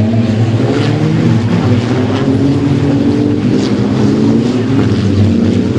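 Racing truck's diesel engine running hard, its pitch sinking, climbing and sinking again as engine speed changes.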